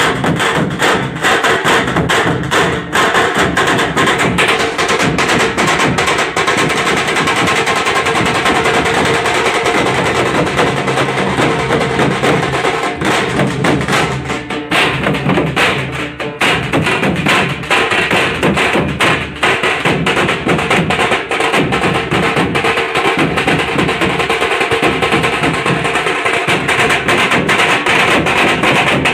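Tasha drum band playing a fast, dense stick rhythm on tasha drums, backed by deep strokes on large barrel drums.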